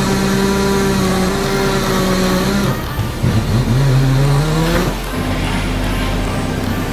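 Tire-shop machine motors running: a tire changer's turntable hums steadily, then a wheel balancer spins a mounted wheel up, its whine rising in pitch for a second or two and then holding steady.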